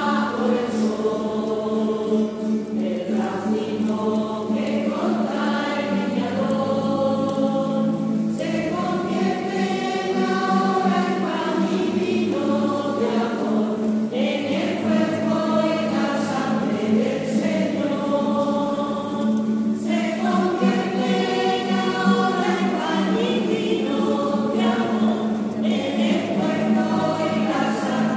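Choir singing an offertory hymn, with phrases of held, stepping notes over a steady low tone.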